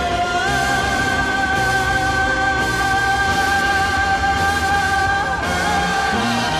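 Background music: one long held note, stepping up in pitch about half a second in and falling away a little after five seconds, over a steady accompaniment.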